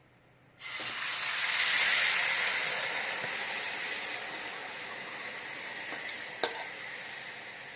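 Thin gram-flour (besan) batter poured into hot oil in a pan, bursting into a loud sizzle about half a second in. The sizzle then slowly settles to a steadier, quieter hiss, with one sharp tap near the end.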